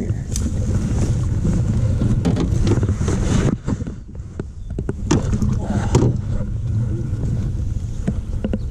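Wind buffeting the microphone, with knocks and fabric rustling from handling a netted bass against the body-worn camera. The sound goes muffled for about a second a few seconds in, as a jacket covers the microphone.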